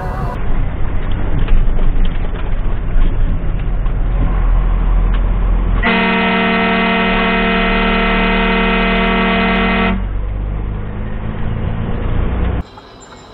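Heavy low rumble of a dump truck's engine and road noise, with a long, steady vehicle horn blast of about four seconds starting about six seconds in and stopping abruptly.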